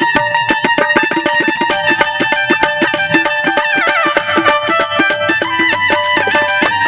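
Instrumental passage of a Bhojpuri-Magahi stage song played by a live band: a fast, dense drum rhythm under a lead melody that bends up and down.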